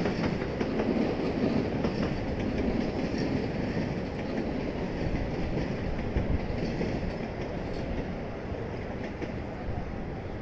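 JR passenger train running past on the tracks below: a steady rail noise of wheels on track that slowly eases toward the end.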